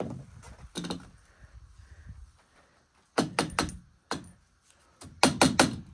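Sharp clicks and knocks in quick clusters of three or four, with a single knock between them. The loudest cluster comes near the end.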